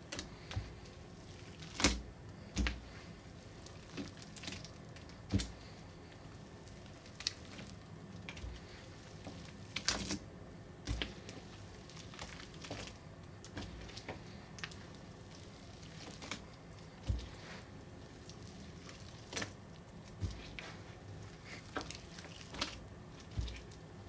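Wet, gritty slime from a soaked earthen excavation block squelching as a hand squeezes it, with irregular plops as clumps fall back into a glass bowl. The squelches come a second or so apart, loudest about two seconds in and again about ten seconds in.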